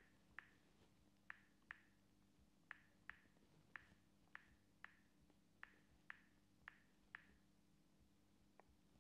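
Near silence: faint, sharp ticks, often in pairs, a little more than one a second, over a faint steady low hum.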